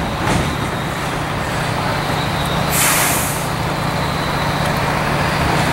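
A steady low machine hum, with a short hiss of escaping air about three seconds in.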